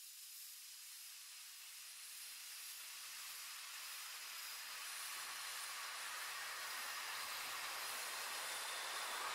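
A rushing hiss with no clear pitch that fades in and slowly swells louder, filling in lower down as it grows.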